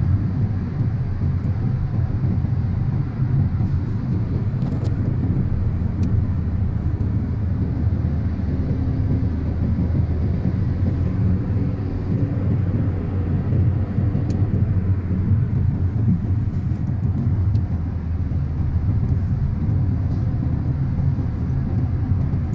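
Steady road and engine rumble heard inside the cabin of a car cruising along a highway, deep and even throughout.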